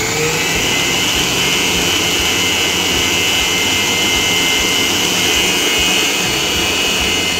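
Electric stand mixer running at high speed, its motor giving a steady high whine as the beater mixes red velvet cake batter in a stainless steel bowl.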